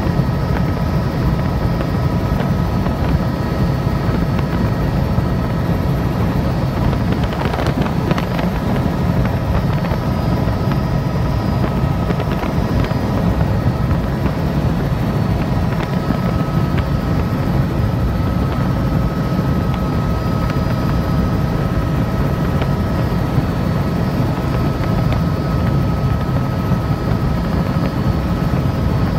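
Helicopter running steadily in flight, heard from on board: a loud, even low drone from the rotor and engine, with a constant whine over it.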